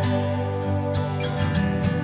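Calm instrumental background music: sustained tones with plucked string notes picked out over them.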